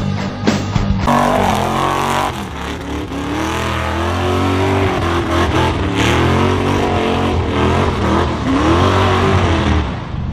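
Lifted Chevy pickup's engine revving hard through a mud bog, its pitch climbing and dropping several times as the driver works the throttle.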